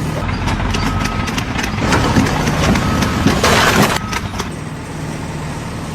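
An engine running steadily, with a run of knocks and clatter and a louder burst of rushing noise about three and a half seconds in.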